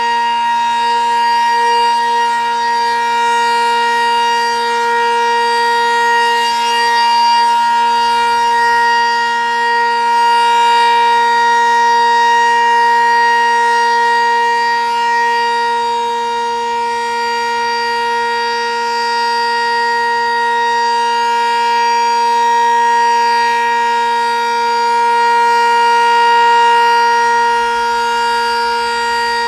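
Sentry 10V2T dual-tone outdoor warning siren sounding the steady alert signal on test: a loud, held chord that stays at one pitch with no rising and falling wail, swelling slightly in loudness now and then.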